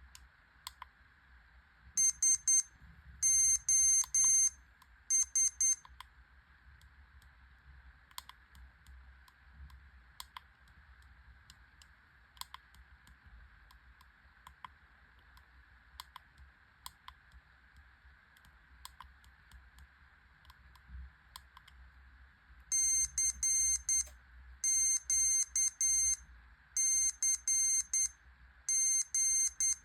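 Buzzer of a Meshtastic/MeshCore mesh radio beeping out a message in Morse code: high-pitched short and long beeps (dots and dashes), a short run about two seconds in and a longer run over the last seven seconds. Faint clicks about once a second in between.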